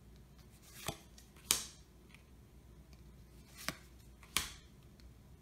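Trading cards being flipped through by hand, one card at a time: four short, sharp snaps of card stock as cards are slid off and moved across the stack.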